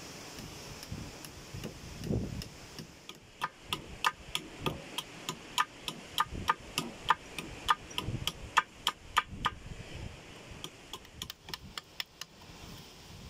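Sharp repeated knocks, about three a second for several seconds, thinning to a few scattered ones near the end.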